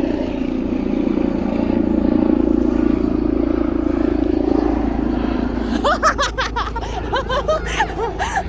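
A steady low rumble, then from about six seconds in children's high voices shouting and squealing.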